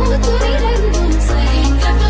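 Electronic background music with a heavy sustained bass, a melody line and a steady beat.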